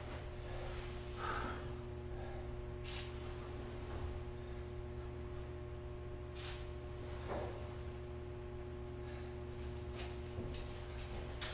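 Steady electrical hum, with a few faint knocks scattered through it.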